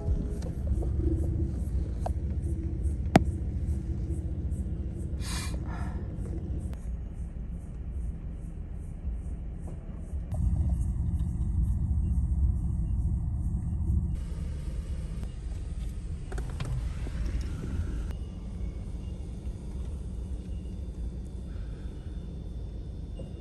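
Steady low rumble of a car heard from inside its cabin as it waits and creeps along in a queue. The rumble gets a little louder between about ten and fourteen seconds in, and there is one sharp click about three seconds in.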